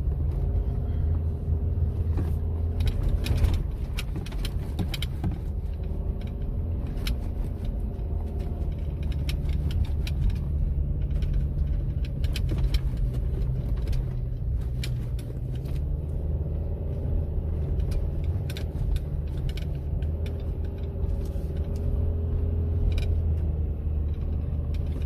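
Subaru XV driving through deep snow: a continuous low drive rumble under an engine note that slowly rises and falls with the throttle, with frequent sharp clicks and knocks scattered throughout.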